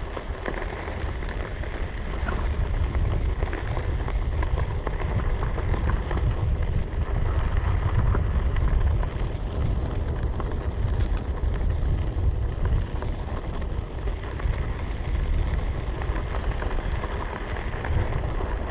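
Wind buffeting the microphone while riding, over a steady gritty crunch of narrow tyres rolling through sand and dirt.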